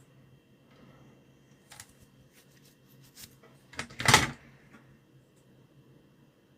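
A few light clicks and knocks from handling the clock's parts, with a louder knock about four seconds in.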